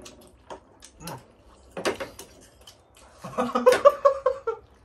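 Forks and spoons clicking against plates and bowls. Then, about three seconds in, a person lets out a run of short, pitched whimpering vocal sounds for over a second, reacting to the burn of spicy noodles.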